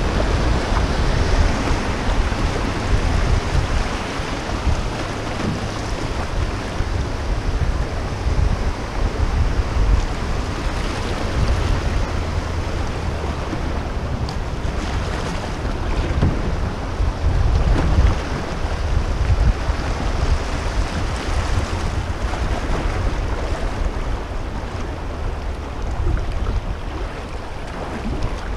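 Fast river current rushing over shallow riffles around a moving canoe, with wind rumbling on the microphone in uneven gusts.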